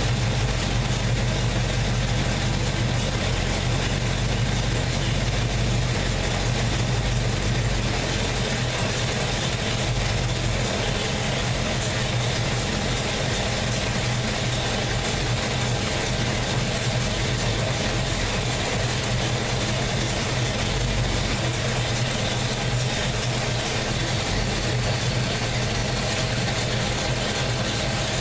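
1967 Chevelle's V8 idling steadily on a freshly installed distributor, vacuum advance disconnected, while its ignition timing is set with a timing light.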